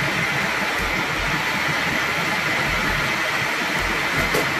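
Food processor motor running steadily, its blade blending a thick cottage cheese mixture in the bowl.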